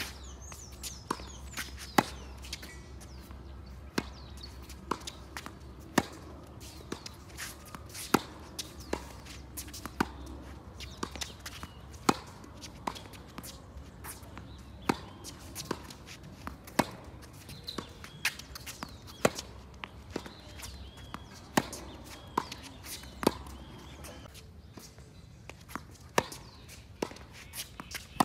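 Tennis baseline rally on a hard court: sharp racket-on-ball hits traded back and forth about once a second, the near player's shots loud every two seconds or so and the far player's fainter in between.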